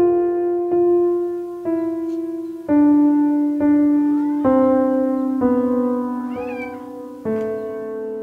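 Soft solo piano, one sustained note about every second in a slowly descending line. A cat meows over it, once about four seconds in and again with a wavering call a couple of seconds later.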